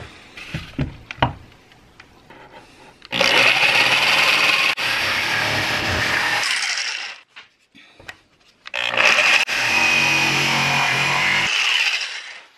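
Electric jigsaw cutting through fiberglass-and-epoxy-covered plywood, running in two bursts of about three seconds each with a short pause between, with a steady high whine.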